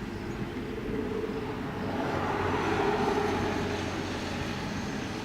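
A vehicle passing by: a rushing noise that swells to a peak about three seconds in and then fades, over a steady low hum.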